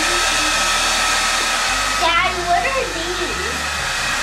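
Handheld blow dryer running steadily, blowing air onto a wet puppy's coat, a steady whoosh with a faint whine in it. A brief pitched sound rises over it about two seconds in.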